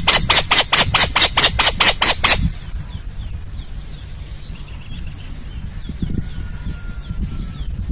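Owl giving a rapid run of harsh, hissing screeches, about five a second, that stops about two and a half seconds in. After it come faint bird chirps and a steady high insect-like whine.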